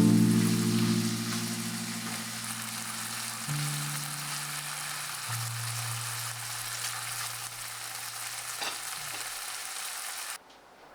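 Food frying in a pan: a steady sizzling hiss, with soft held background music notes underneath. The sizzle cuts off suddenly near the end.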